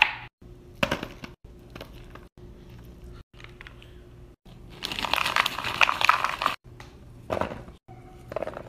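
Short knife cuts through a strawberry on a plastic cutting board, then a foil snack bag crinkling for about two seconds in the middle, the loudest sound, and near the end blueberries dropped into a plastic tray. The snippets are spliced together with abrupt short silences between them.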